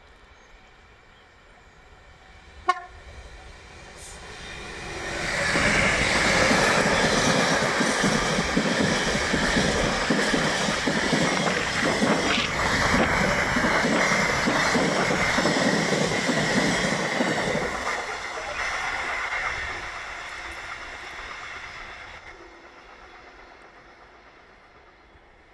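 A Freightliner Class 66 diesel locomotive sounds a short horn blast, then passes close by with its two-stroke diesel engine running, followed by a long rake of engineering wagons rumbling and clattering over the rails. The train is loud for about a dozen seconds and then fades away.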